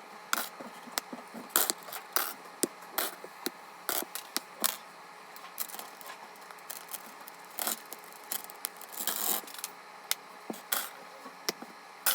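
Hair clips clicking as they are unclipped and set down: an irregular run of sharp clicks and clacks, one or two a second.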